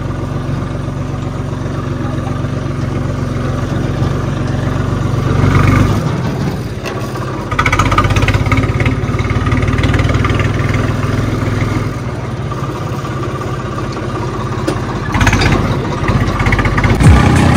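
Tractor diesel engine running as the tractor drives along. The engine note eases off about six seconds in, picks back up a moment later, and rises again near the end.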